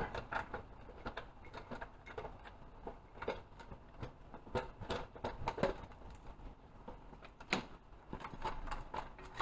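Scattered light clicks and knocks of hands handling hoses, wiring and plastic parts on top of an engine, at uneven intervals, with one sharper knock about seven and a half seconds in.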